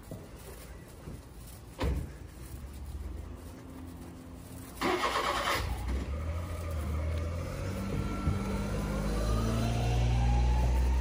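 A car engine starts about five seconds in, then runs with a low hum that grows louder, its pitch rising toward the end as it revs up and pulls away. A single thump comes about two seconds in.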